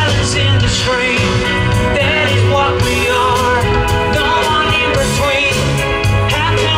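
A live band playing on a festival stage, with a lead singer over drums, bass and guitar. It is heard from the crowd in front of the stage.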